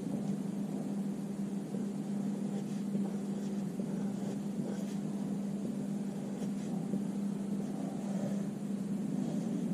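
A steady low hum runs throughout, with faint scratches of a pencil sketching on drawing paper.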